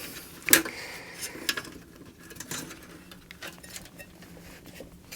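Small clicks and light scraping of metal being worked by hand: the sheet-metal clips holding the hard drive caddy inside a Sky+ HD box being bent and prised. One sharper click about half a second in, then scattered smaller ones.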